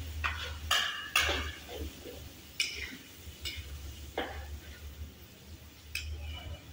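Metal spatula scraping and knocking against a wok while stir-frying, in about seven sharp, irregular strokes with the busiest run in the first second and a half.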